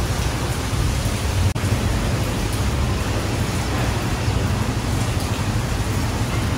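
Steady rain, a dense, even hiss with a low rumble underneath, broken by a brief dip about one and a half seconds in.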